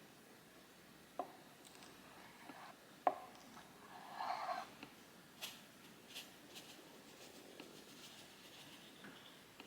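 Faint kitchen prep sounds: a few light, separate knocks and a brief rustle about four seconds in.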